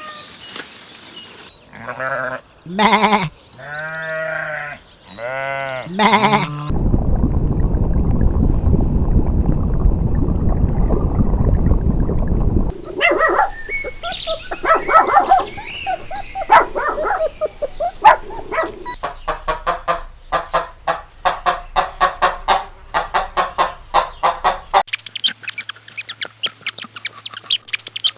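A run of farm animal sounds, led by wavering, pitched bleats of sheep or goats, then a loud noisy rumble lasting several seconds and a fast series of short calls.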